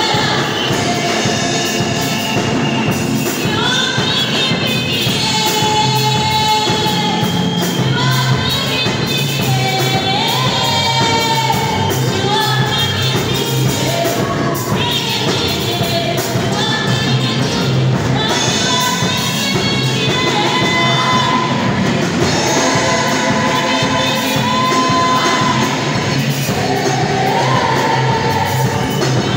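Live gospel praise singing: a woman leads into a microphone and a group of singers joins in, backed by a band with drums and a steady low bass line.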